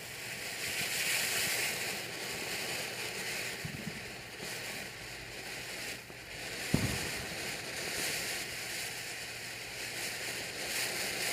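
Consumer ground fountain firework spraying with a steady, pretty loud hissing rush. There is one short low thump about two-thirds of the way through.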